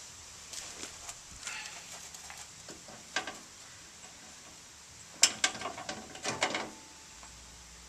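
Loaded strut assembly (strut with its coil spring) clanking and rattling against the truck's front suspension as it is worked up into place: scattered metallic clicks, with a louder cluster of knocks a little after five seconds in.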